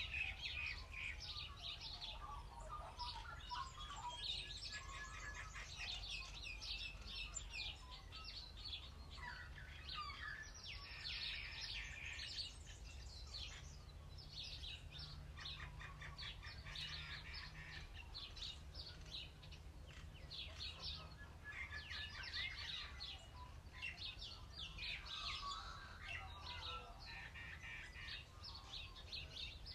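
Birdsong from several birds: many short chirps, trills and twitters, one after another, over a low steady rumble.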